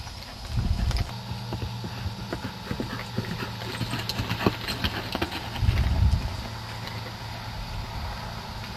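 A horse's hooves clip-clopping on the ground in a run of steps, most of them through the middle of the stretch, with two brief low rumbles, one near the start and one about six seconds in.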